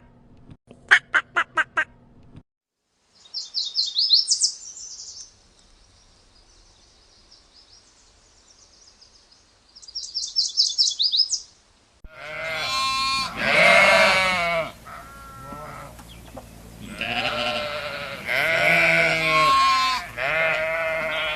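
A run of animal calls: first two short bursts of rapid pulsed calls, then two bursts of high, rapid chirping a few seconds apart, then from about twelve seconds in repeated sheep bleating, several bleats close together.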